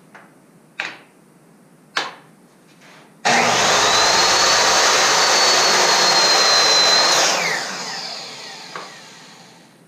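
Ryobi miter saw cutting through two hard maple boards at once for a butt joint. Two light knocks come first. About three seconds in the motor starts with a rising high whine and runs steadily through the cut. Near seven seconds it is switched off, and the whine falls away as the blade spins down.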